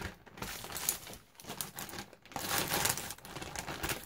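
A bag full of old broken jewellery crinkling and rustling as it is handled, in two bouts, the second and louder one beginning just past halfway.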